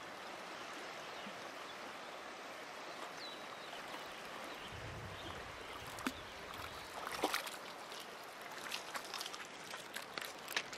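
River water flowing, a steady rushing sound, with a few faint ticks in the second half.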